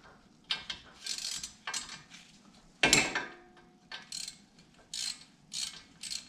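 Socket ratchet clicking in short, uneven strokes while an 8 mm bolt holding the front ABS wheel-speed sensor is loosened, with a louder metallic clink about three seconds in.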